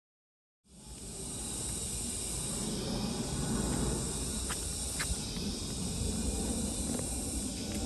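Outdoor trail ambience: a steady high hiss over a low rumble, with a few faint clicks. It starts abruptly a little over half a second in.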